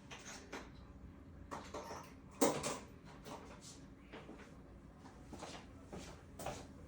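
Scattered knocks and clicks of tools and sockets being handled and set down while he fetches a socket, with one louder knock about two and a half seconds in.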